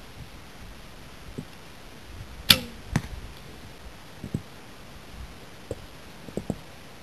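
A horsebow is shot: a sharp snap of the string about two and a half seconds in, with a short falling ring, then a thud about half a second later as the arrow strikes the target. A few faint clicks from handling the bow and arrows come before and after.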